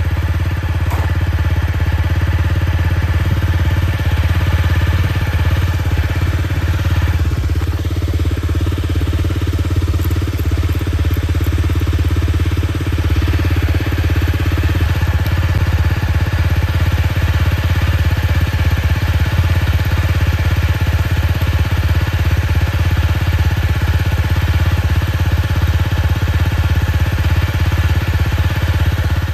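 Honda CRF250L single-cylinder engine idling steadily, with no change in speed.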